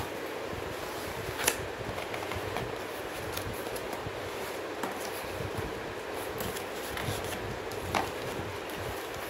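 Cardboard box being handled by hand as its flaps are pulled open, with rustling and a few sharp knocks, the clearest about a second and a half in and near the end, over steady background noise.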